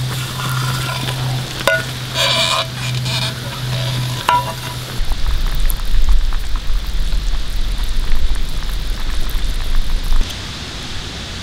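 Metal clinks and clatter as the lid is lifted off a mess tin on a campfire grill, then stew in the tin bubbling and sizzling over the fire. From about five seconds in a loud, uneven low rumble joins it, stopping just after ten seconds.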